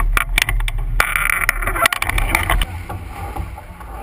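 Wind buffeting a camera microphone on a racing sailboat under way, with a heavy rumble and frequent sharp crackles over the rush of water past the hull. About two-thirds in the buffeting stops abruptly, leaving a quieter, steady rush of wind and water.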